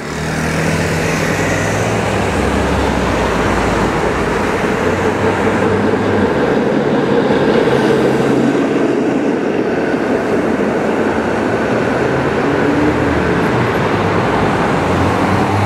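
PCC streetcar passing close by on street rails, a loud steady rumble of its wheels on the track with a low hum under it.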